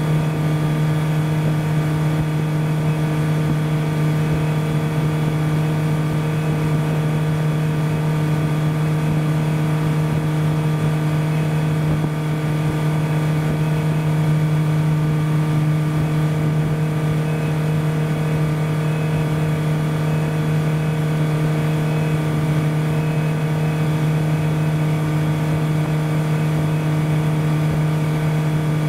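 Motorboat engine running at a steady cruising speed, an even, unchanging hum with one strong low tone and several higher ones above it.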